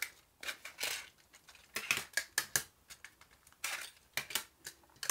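Clear plastic MiniDisc cases and discs being handled on a wooden tabletop: irregular hard plastic clicks, taps and short scrapes.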